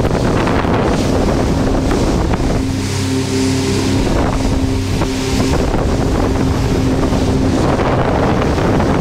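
Motorboat under way at speed: wind buffeting the microphone over the rush of water along the hull and wake. About two and a half seconds in, the boat's engine drone comes through as a steady hum for about five seconds, then sinks back under the wind.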